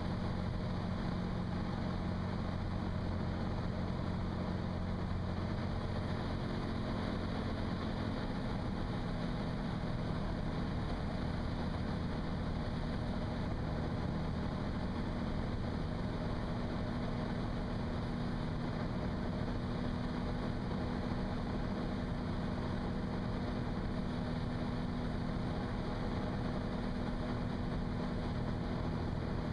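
Cirrus SR22's 310 hp Continental IO-550 six-cylinder engine and propeller droning steadily, heard inside the cockpit on final approach. The engine note shifts about eight seconds in.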